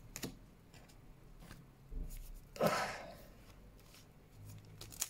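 Quiet handling of Pokémon trading cards: a few faint soft clicks as cards slide against each other, and one short rustle about two and a half seconds in.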